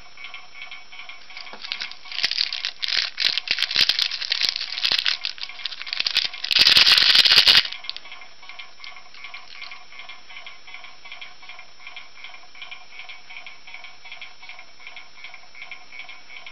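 A small plastic bag of tiny candies crinkling and rattling as it is handled, ending in a solid second-long burst of shaking about seven seconds in. Light background music with a regular ticking beat runs underneath throughout.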